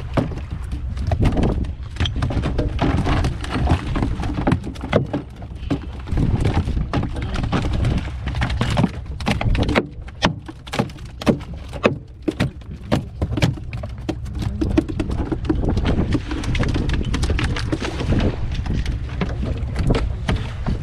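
Freshly landed queenfish flapping and slapping against the wooden deck of a small fishing boat in quick, irregular knocks, thickest around the middle. Underneath is a steady noise of wind and sea.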